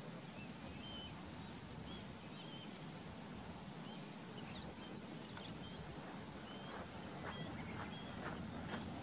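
Wild birds chirping and whistling in short, scattered calls over a steady low background hum, with sharp call notes coming more often in the last few seconds.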